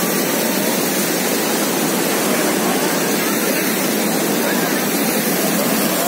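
Waterfall: water cascading down rocky ledges and a stepped weir in a steady, loud rush.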